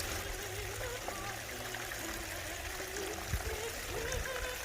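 Creek swollen by storm rain, flowing steadily as an even rushing of water. Faint wavering melodic tones come and go over it, and there is a single short knock about three seconds in.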